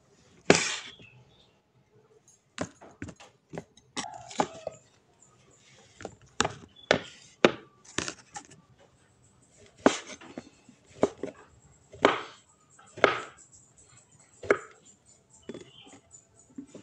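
Kitchen knife slicing blocks of tempe, each cut ending in a knock on the wooden cutting board. The knocks are irregular, about one or two a second with short pauses.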